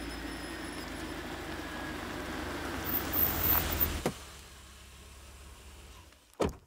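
A car driving up and pulling to a stop: a steady low engine and tyre sound that grows louder, then drops away suddenly about four seconds in.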